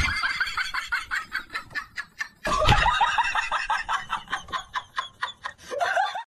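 Rapid cackling: short, high calls about five a second, breaking off briefly about two and a half seconds in and stopping just before the end.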